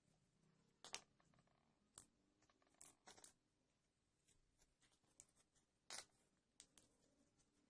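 Faint, scattered clicks and light scrapes of small-scale hand work on a small model truck. Sharper taps come about a second in, at two seconds, a quick cluster around three seconds and another near six seconds.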